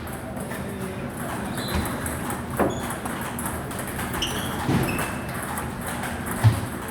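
Table tennis ball knocks: three sharp clacks about two seconds apart, over a steady hall background with a few brief high squeaks.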